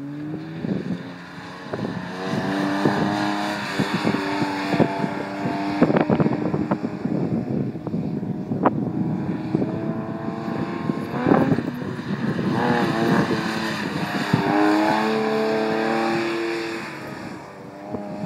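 1982 Porsche 911 SC's air-cooled flat-six engine revving up and down as the car circles a skidpad, the pitch rising and falling again and again as the throttle is worked to control oversteer. Short sharp clicks sound here and there over the engine.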